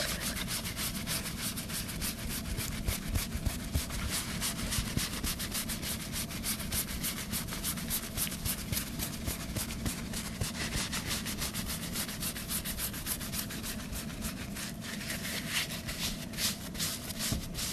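Fast, steady rubbing strokes close to the microphone, several a second, from hands rubbing near it.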